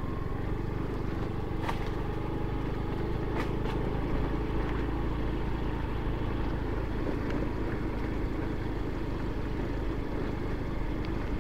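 Small motorbike running steadily while riding a bumpy dirt track, with wind and tyre noise and a few sharp knocks from the rough ground about two and three and a half seconds in.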